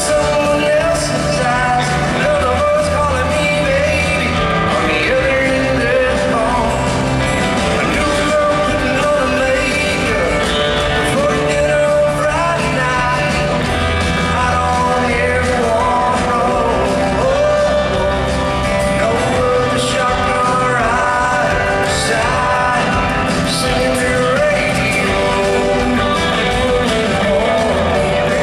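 Live country music: a full band with guitars and bass playing behind a male lead singer.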